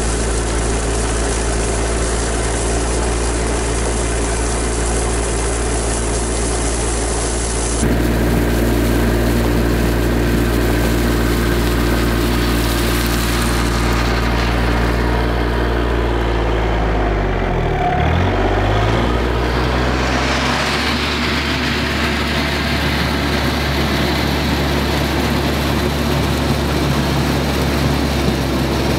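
RK 24 subcompact tractor's diesel engine running steadily while its loader bucket tips out gravel, with stones pouring and rattling. A little past the middle the engine note dips and comes back up.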